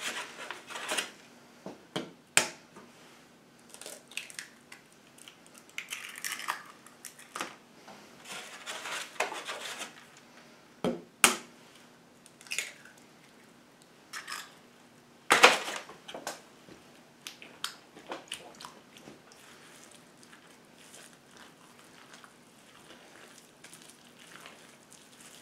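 Scattered knocks and taps against a mixing bowl with soft, wet squishing between them: eggs being cracked into moist cornbread dressing and worked into the mix. The loudest knock comes about fifteen seconds in.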